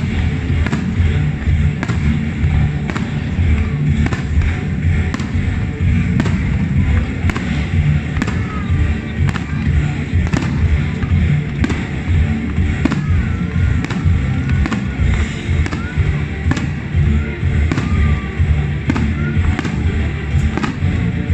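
Fireworks bursting in a rapid, irregular series of bangs over loud, steady music.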